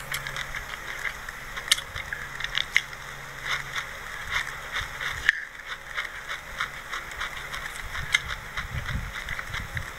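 Close-up chewing of a mouthful of white sesame seeds: irregular small crackles and clicks, with a metal spoon scraping across the ceramic plate. The sound breaks off briefly a little past halfway.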